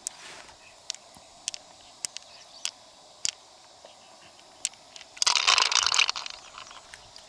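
Freshwater mussel shells being handled and opened: scattered sharp clicks of shell, then about a second of dense, crunchy scraping about five seconds in.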